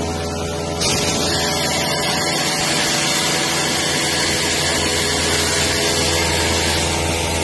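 1989 Toshiba BTD-200-Q horizontal boring machine running under power, a steady hum with several held tones. A strong steady hiss comes in about a second in and carries on to near the end.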